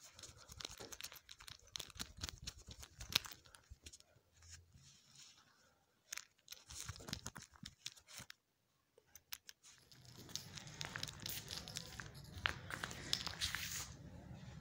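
A kitten batting a small stick-shaped toy across a marble tile floor: a run of light clicks and scrapes from the toy and paws skidding on the tiles, with a short silent gap past the middle.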